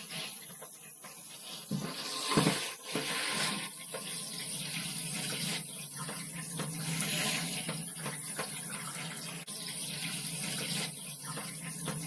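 Water running from a shower head over a typewriter, rinsing the cleaning solution out of the machine. A few knocks come about two to three seconds in.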